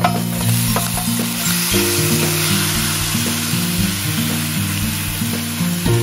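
Food sizzling as it fries in hot oil in a pan, a dense steady hiss that starts suddenly, as if the food has just hit the oil.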